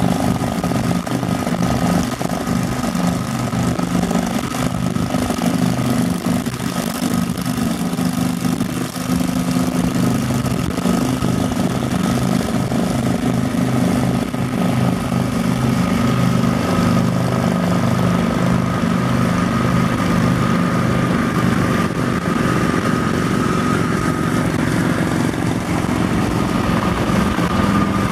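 Touring motorcycles cruising at highway speed in the next lane, a steady low engine drone, mixed with steady wind and road noise from the car they are passing alongside.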